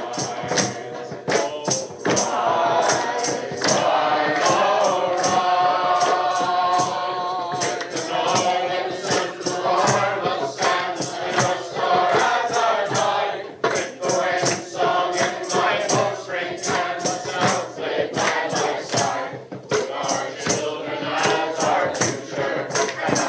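Choir singing in chorus with a steady percussion beat of sharp, regular strikes, dipping briefly twice between phrases.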